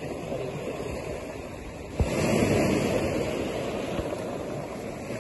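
Ocean surf washing on a rocky shore. About two seconds in, a wave surges in with a brief knock at its start, then slowly fades.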